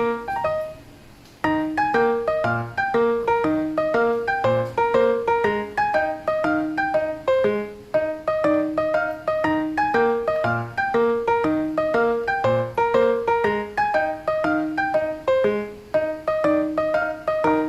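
Background piano music: a steady run of single struck notes in an even rhythm, after a short pause about a second in.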